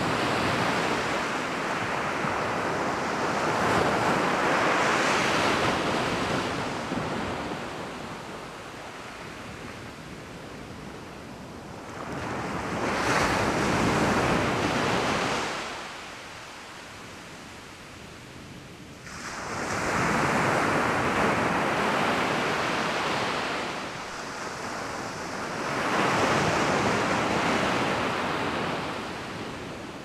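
Small waves breaking and washing up a sandy beach, four surges of rushing surf, each a few seconds long, with quieter lulls between.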